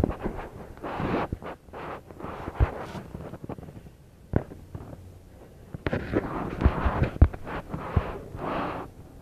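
Irregular knocks, bumps and rustling close to the microphone, with a busier cluster of knocks in the second half: handling noise.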